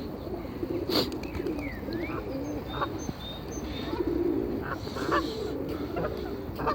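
Pigeons cooing continuously in low, warbling calls, with a few short high chirps from small birds. A sharp click sounds about a second in.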